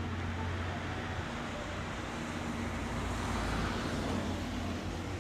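Departing train of an EF65 electric locomotive and 12-series passenger coaches rumbling away into the distance, a low hum dropping off about a second in.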